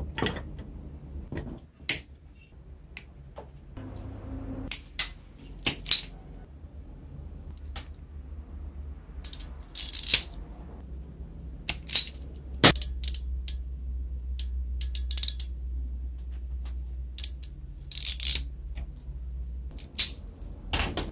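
Scattered sharp clicks, taps and brief rustles as electrical wires, crimp terminals and the metal switch housing of a reciprocating saw are handled during rewiring, over a low steady hum.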